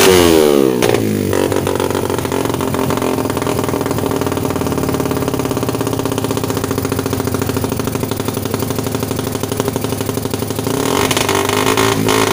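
Stock Suzuki Satria FU 150's single-cylinder four-stroke engine running through an aftermarket RCB Purba exhaust. The revs fall away off a throttle blip in the first second and settle into a steady idle, then it is revved up again about eleven seconds in.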